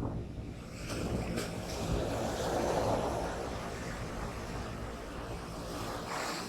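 Surf breaking on the beach: a wave's rush swells about a second in, peaks midway and eases off near the end, with wind rumbling on the microphone.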